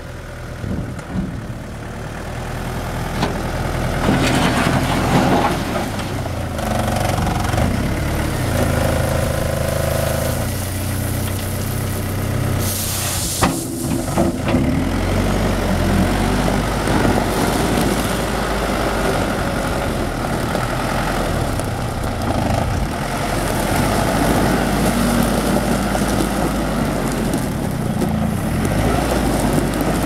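Komatsu WB140 backhoe loader's diesel engine running and revving up and down as the front loader bucket is raised and tipped and the machine drives over gravel, with a short hiss about halfway through.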